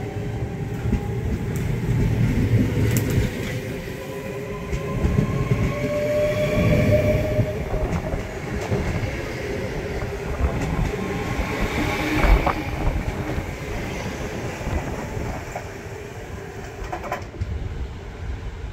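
Passenger train moving slowly through a station. Its wheels rumble and knock now and then over the rails, and a thin squealing tone glides slowly upward in the first several seconds. The sound fades toward the end.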